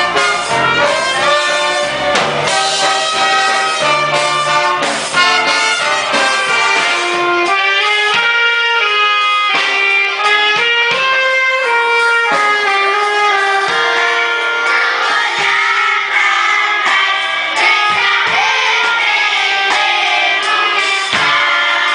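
A live orchestra playing a Christmas-song medley, led by a brass section of trumpets, trombones and saxophones with violins. Voices singing join in during the second half.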